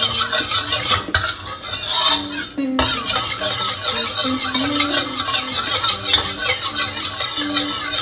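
A spatula stirring and scraping in a wok over hot oil that sizzles, with a short break about three seconds in. Soft background music plays underneath.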